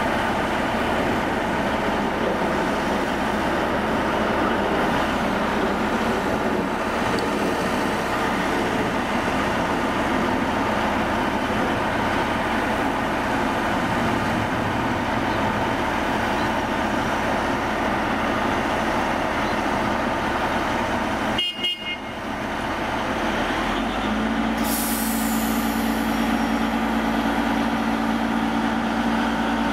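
Diesel engine of a subway track geometry car running steadily. About three-quarters of the way in, a steady low tone sets in and holds for several seconds, with a short hiss just after it starts.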